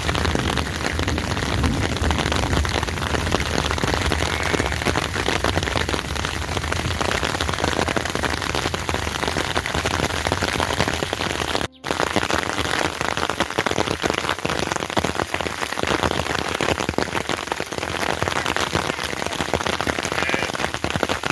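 Heavy rain falling steadily, a dense even hiss of drops. It breaks off for a split second about twelve seconds in.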